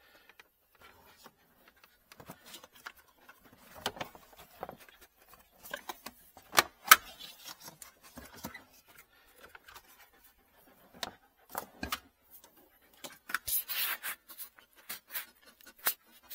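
Handling noise of a car battery cover being worked loose and taken off: scattered clicks, knocks and rustling, with two sharp clicks about seven seconds in and a burst of rubbing and scraping near the end.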